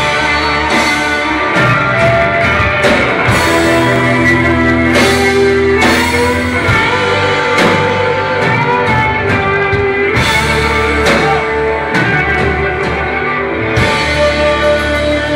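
Live rock band playing an instrumental passage, loud and continuous, with guitar, keyboards and violin, heard from the audience in a concert hall.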